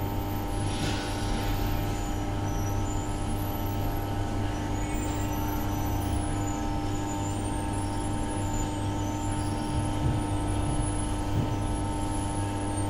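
A steady low mechanical hum with several constant tones, like a motor or engine running, with a brief hiss about a second in.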